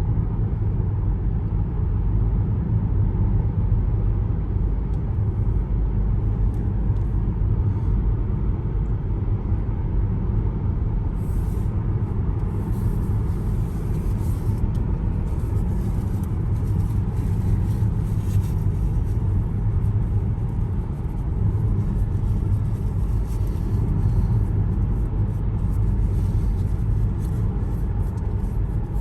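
A car being driven along the road: a steady low rumble of tyres and engine. A faint hiss comes and goes from about a third of the way in.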